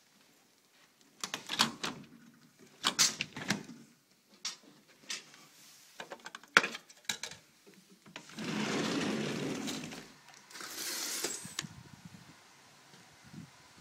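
Clicks and knocks of a sliding glass patio door being handled, then the door rolling along its track with a rumble lasting about two seconds, followed by a shorter, hissier scrape.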